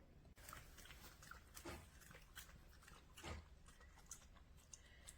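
Near silence with a few faint, irregular clicks and small wet sounds from a dog at a pet water fountain.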